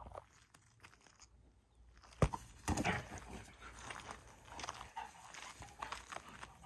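A Great Pyrenees puppy mouthing and nosing a small plastic toy soccer ball on grass: a sharp knock about two seconds in, then a run of irregular scraping and clicking as it handles the ball.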